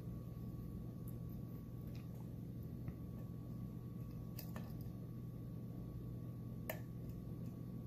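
A dimple pick working the pins inside a Mul-T-Lock Interactive+ pin-in-pin dimple cylinder with serrated drivers: a few faint metallic clicks, two close together around the middle and the sharpest near the end, over a steady low hum.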